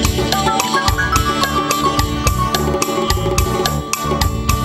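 Instrumental break of an Afghan folk song: a steady drum beat of about four strokes a second under a melody that climbs in short steps and then holds.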